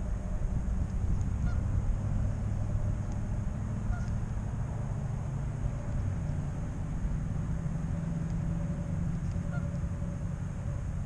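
Geese honking a few times at a distance over a steady low rumble.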